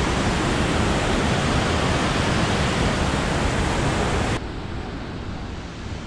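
Fast-flowing mountain stream rushing under a wooden footbridge: a loud, steady rushing hiss that cuts off abruptly about four seconds in, leaving a quieter, duller hiss.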